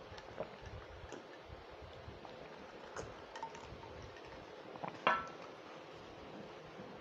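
A glass of water being handled, with a few light clicks, then set down on a desk with a sharp clink and a short ring about five seconds in.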